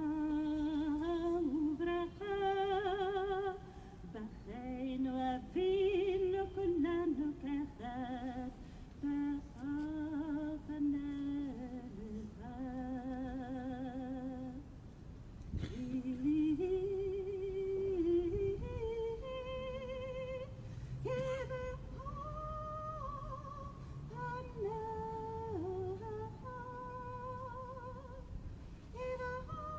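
A woman singing solo and unaccompanied: a slow melody of long held notes with a wide vibrato, gliding between pitches.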